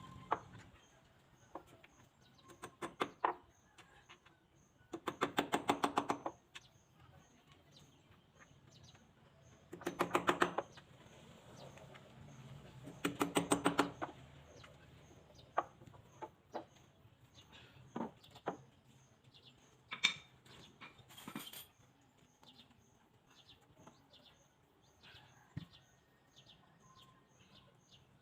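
A power tool runs in about five short bursts of a second or so, each a fast rattling beat, followed by scattered single taps. A bird chirps steadily about twice a second in the background.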